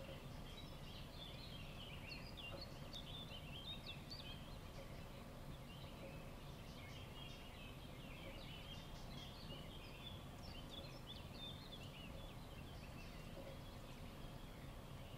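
Faint, busy twittering of small birds: many short chirps and quick little notes overlapping, thickest in the middle, over a steady low rumble.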